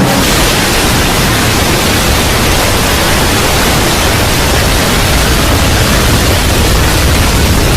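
Loud, steady, static-like noise sound effect, an even rush that fills everything from a deep rumble up to a hiss, without change.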